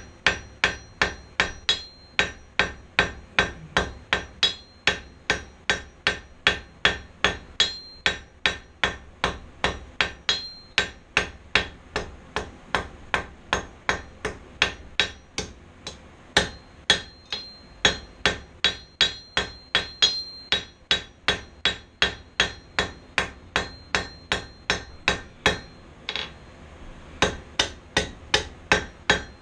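Hand hammer striking hot steel on an anvil, drawing the bar's end out to a tapered rat tail. The blows come steadily, about two to three a second, each with a short metallic ring from the anvil, with one brief pause near the end.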